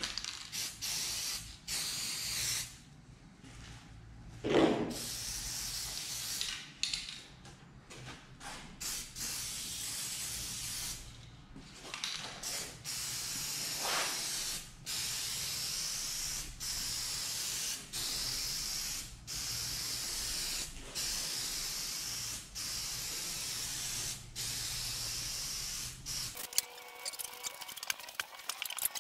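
Aerosol can of spray adhesive hissing in more than a dozen short bursts of one to two seconds each, stopping shortly before the end. A brief louder sound with a dropping pitch comes about five seconds in, and a fainter one about fourteen seconds in.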